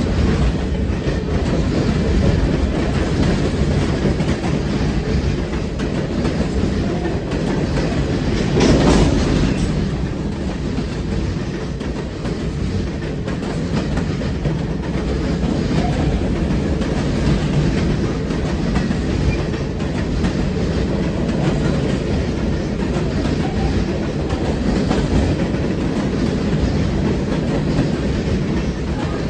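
CSX freight train rolling past, its wheels making loud track noise and clattering over the rails, with one brief louder surge about nine seconds in.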